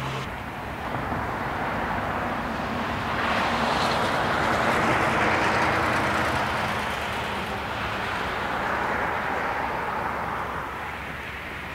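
Jet engine noise of a four-engined Boeing 747 on final approach and touching down. It is a steady rushing roar that swells to its loudest about four to six seconds in, then eases off.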